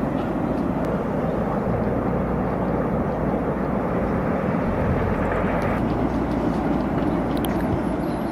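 A steady, loud rushing rumble with no clear pitch, of the kind heard in raw field footage of a natural disaster.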